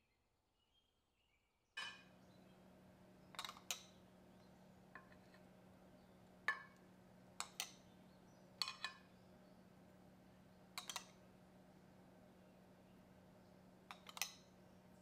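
Light clinks and taps of kitchen utensils and dishes, about a dozen spread irregularly and often in quick pairs, over a faint steady hum that starts about two seconds in. Before the hum it is near silent, with faint chirps.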